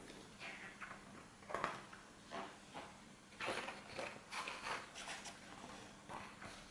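Soft paper rustling and handling of a large hardcover earbook as its pages are turned, a series of short faint brushes and flaps.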